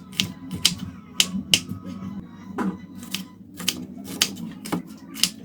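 A kitchen knife chopping on a cutting board: sharp, uneven strikes about two to three a second, with a short pause about three and a half seconds in.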